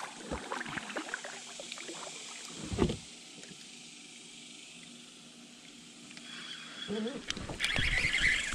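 Small knocks and clunks of gear being handled against a Pelican fishing kayak's hull, with one louder thump about three seconds in. Near the end a rising hiss with rapid clicks sets in and grows louder.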